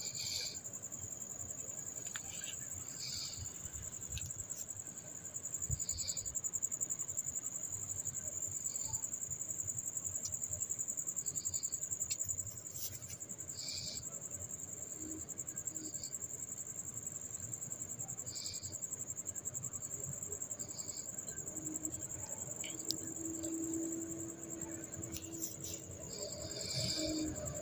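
Insects trilling steadily at a high pitch, with a second, shorter chirp repeating every couple of seconds. A few faint metal clicks come from rocker arms being set into the cylinder head.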